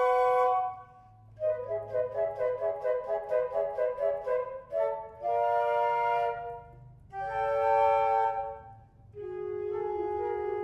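Trio of concert flutes playing chamber music: a run of quick, separate notes, then two held chords with short pauses between them, and a lower held, wavering note near the end.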